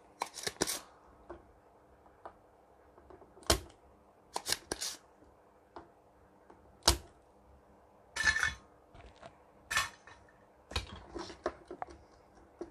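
Spring-loaded desoldering pump (solder sucker) being cocked and fired on a circuit board, giving a series of sharp snaps and clicks at irregular intervals, with a few short rushes of noise. It is clearing solder from the pads before a new electrolytic capacitor goes in.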